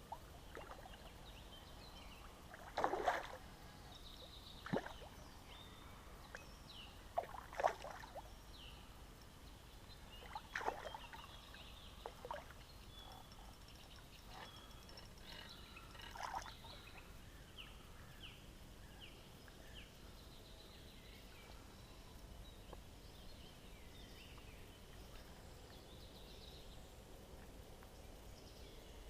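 Quiet creek-side ambience with faint birds chirping, broken by about half a dozen brief sharp sounds from an angler wading in the stream, the loudest about three and seven seconds in, the last around sixteen seconds in.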